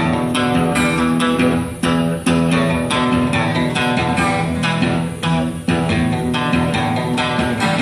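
Recorded music with guitar and a steady beat, played loud over a DJ's PA speakers during a sound test.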